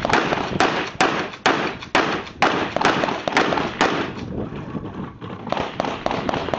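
A rapid string of gunshots from a rifle or shotgun, about two a second, each with a trailing echo. After a break of over a second in the middle, a quicker run of shots comes near the end.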